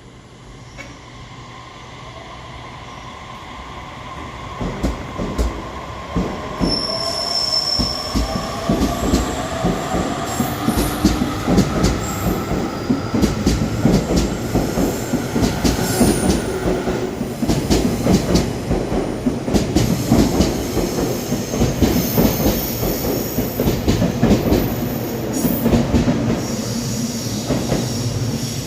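JR Kyushu electric train growing louder over the first few seconds as it nears, then a steady clatter of wheels over rail joints with a gliding motor whine and brief high wheel squeals.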